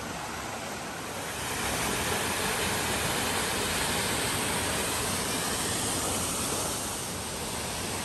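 Small mountain waterfall and stream rushing steadily, louder from about a second and a half in and easing off near the end.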